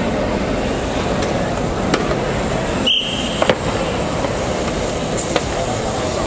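Steady background din of a busy competition hall, broken by a few sharp knocks and a short high beep about three seconds in.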